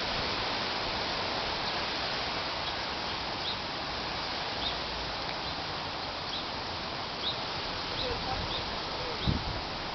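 Wind blowing steadily through the trees, with short high chirps every second or so from about three seconds in, and a dull bump near the end.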